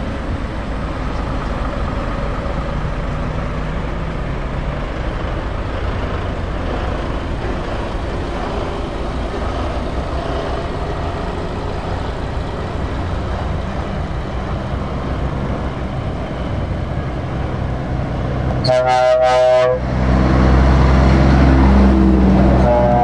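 Scania truck engine running as it rolls slowly toward the camera in traffic. A short truck air-horn blast sounds about three-quarters of the way through, then the engine gets louder as a large vehicle passes close by, with horn notes again near the end.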